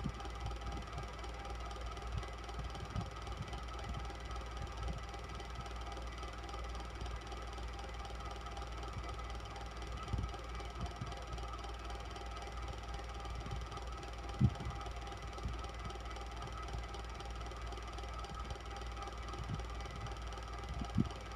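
Electric fan running steadily: an even motor hum and whir with a low rumble, broken by a few brief, soft low knocks, the clearest about two-thirds of the way through and another near the end.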